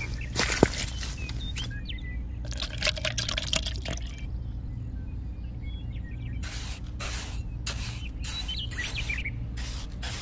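Wet cement mix sloshing and plopping as it is poured from a small plastic cup into a form. About halfway through comes a run of short scraping strokes, two or three a second, as a miniature trowel smooths the wet cement, over a steady low hum.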